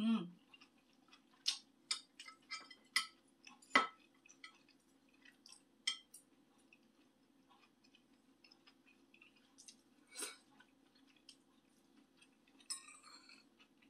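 Metal spoon and fork clinking and scraping against a dish at irregular intervals as soft tofu is cut, with one louder knock about four seconds in, over a faint steady hum.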